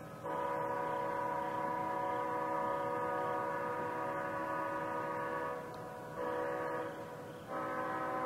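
Leslie S5T five-chime locomotive air horn sounding its chord: a long blast of about five seconds, a short blast, then another blast starting near the end.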